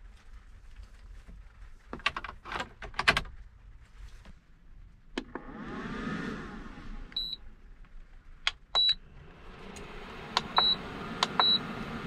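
Handling clicks and button presses on a Jackery portable power station and an induction cooking heater, with four short high electronic beeps. From about ten seconds in, the induction cooktop's cooling fan starts up and runs as a steady hiss.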